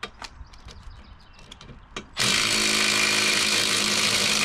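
Cordless impact wrench tightening a wheel lug nut, running steadily for about two and a half seconds from a little over two seconds in; a few light clicks and taps of the socket and wheel come before it.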